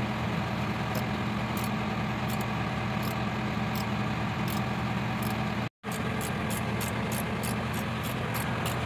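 Steady hum of an idling engine, with light metallic ticks from a spanner working a belt pulley bolt, more frequent in the second half. The sound cuts out for an instant just under six seconds in.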